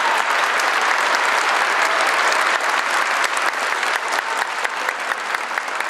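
A large audience applauding: many hands clapping at once in a dense, steady patter that eases slightly toward the end.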